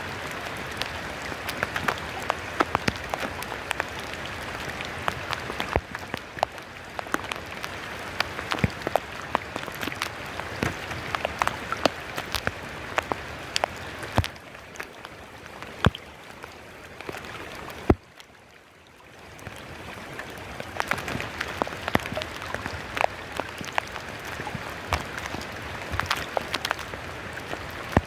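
Heavy monsoon rain falling steadily, with many sharp drops and drips hitting surfaces close by. About two-thirds of the way through it briefly falls away, then swells back.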